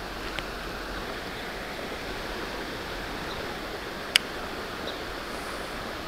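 Steady rush of a creek's flowing water, with one sharp click about four seconds in.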